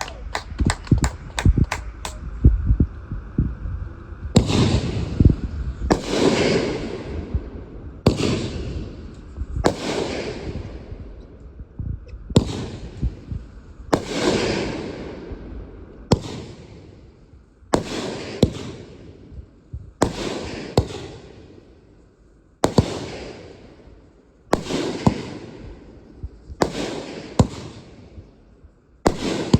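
Consumer aerial fireworks going off: a quick run of sharp cracks, then a long series of loud bangs about every two seconds, each trailing off in a fading rumble.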